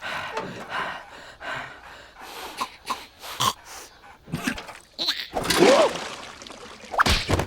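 Cartoon character vocal effects from the Larva animation: a run of short breathy gasps and snorts, then a louder wavering squeal about five and a half seconds in, and a couple of loud sudden bursts near the end.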